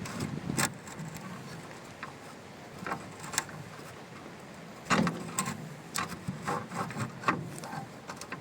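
Wooden roof batten knocking and scraping inside a brick chimney flue as it prods at a hammer lying at the bottom: scattered irregular knocks and clicks, the loudest about five seconds in.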